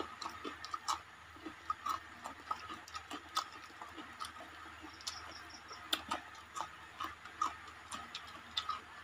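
Close-up eating sounds of people eating rice and fish with their hands: irregular wet clicks and smacks of chewing and lips, a few each second.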